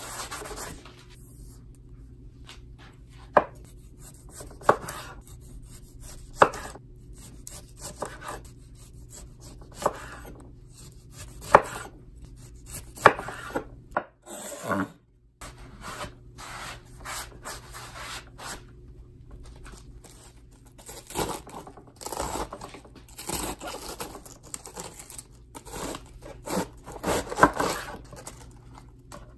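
Knife slicing tomato on a wooden cutting board, each stroke ending in a sharp knock on the wood, about seven strokes a second or two apart. After a short pause, denser crunching cuts follow as the knife goes through a head of iceberg lettuce on the board.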